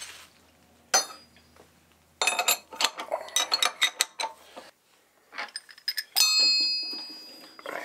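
Metal tools and parts clinking and tapping as the workpiece and drill bit are set up in a milling machine vise. About six seconds in, a struck piece of metal rings out like a small bell and fades over a second or so.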